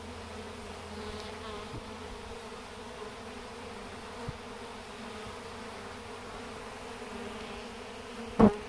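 Honeybee swarm buzzing steadily at the hive entrance as the bees march in and fan their wings to spread the queen's pheromone. A short, loud bump near the end.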